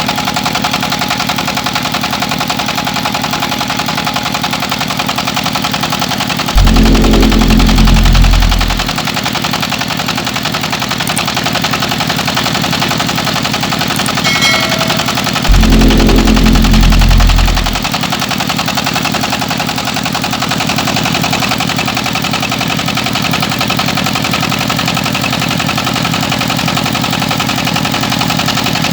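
Rice milling machine running steadily with an even mechanical rhythm. Twice a loud low rumble swells in and dies away over about two seconds.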